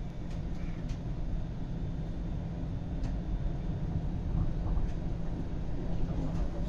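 Toronto TTC streetcar running along its track: a steady low rumble of motors and steel wheels on rail, with a few faint clicks.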